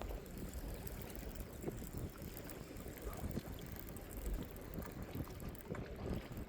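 Wind rumbling on the microphone over the slosh of sea water. It is a steady, noisy background with irregular low gusts and a few faint clicks.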